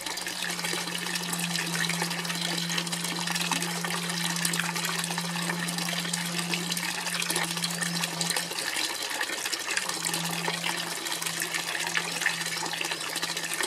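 Water splashing steadily from a fountain spout into a stone trough. A steady low hum runs underneath and drops out briefly about two-thirds of the way through.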